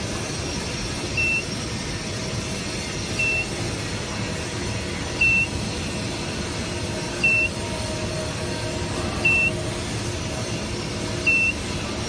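A short, high electronic beep repeating about every two seconds, six times, from the induction heating unit's beeper, over a steady hum of running equipment.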